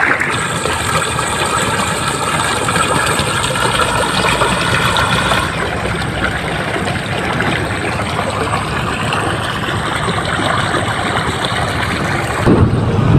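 Irrigation pump engine running steadily while water flows into a flooded rice paddy. A whine of several steady tones stops about five seconds in, and the sound gets louder near the end.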